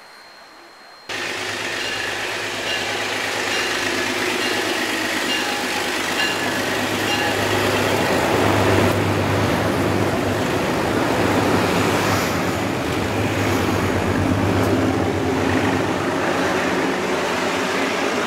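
A narrow-gauge diesel locomotive passing close alongside, its engine running with a steady low hum, followed by its passenger cars rolling by on the rails. The sound comes in abruptly about a second in.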